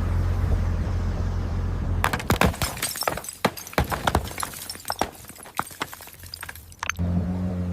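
A low steady drone, then about two seconds in a car-crash sound effect: a dense run of sharp impacts, cracking and shattering glass and debris clattering, thinning out and stopping abruptly about seven seconds in. A droning hum with steady tones starts right after.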